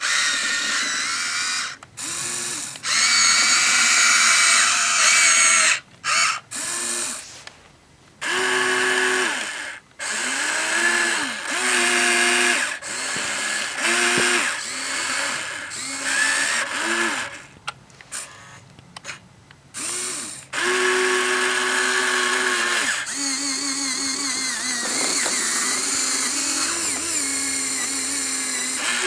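Electric gear motors of a Huina 1593 RC excavator whining in stop-start runs of a second or several, the pitch rising and falling as the controls are worked.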